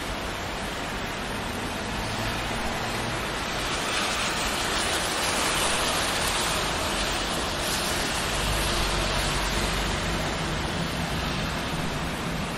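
Steady rain falling on a city street. Near the middle a passing car's tyre noise on the wet road rises and fades, with a low rumble just after.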